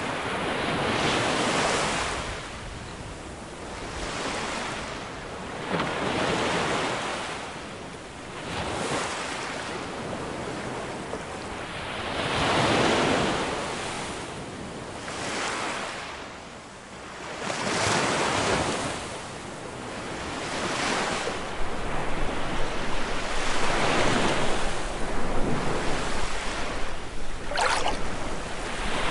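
Baltic Sea waves breaking and splashing against wooden groyne posts, each surge of surf swelling and fading every few seconds. About two-thirds of the way in, wind starts buffeting the microphone with an uneven low rumble.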